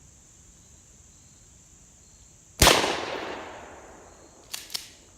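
A single 12-gauge shotgun blast, one sharp crack with a long echoing tail fading over about a second and a half. About two seconds later come two quick metallic clicks of the action being cycled.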